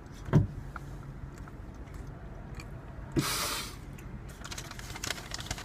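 Close mouth noises of someone chewing a bite of fish burger, with a sharp thump about a third of a second in and a brief burst of noise a little after three seconds.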